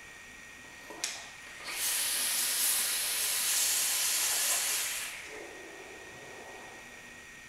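Dual-coil rebuildable vape atomizer with a 0.13 ohm sub-ohm build, fired during a long inhale: a brief click about a second in, then a loud hiss of coils vaporising e-liquid and air rushing through the atomizer for about three seconds. Then a softer, breathy exhale of the vapour.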